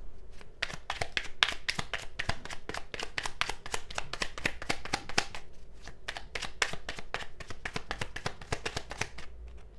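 A deck of cards being shuffled by hand: a quick, uneven run of card flicks and slaps that thins out near the end.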